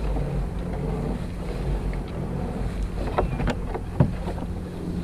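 Steady low wind rumble on the microphone while a crab pot rope is hauled hand over hand into a kayak, with a few short knocks and rattles near the end, the loudest about four seconds in.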